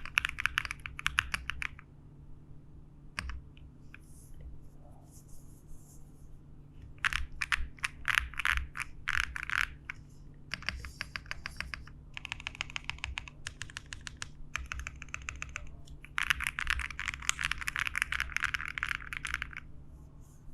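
Typing on a CherryB CB65 mechanical keyboard with an aluminium case, WS Onion switches, plate foam and a tape mod. It comes in several fast runs of key presses with short pauses between them, and the third run has slower, more separate strokes.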